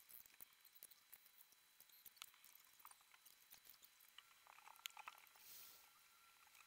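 Faint, irregular scratching and ticking of a ballpoint pen drawing on cardboard, with a brief hiss about five seconds in.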